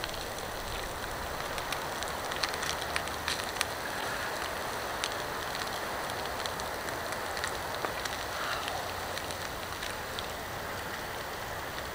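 Grated potato frying in olive oil in a pan over a campfire: a steady sizzle with scattered small crackles and pops.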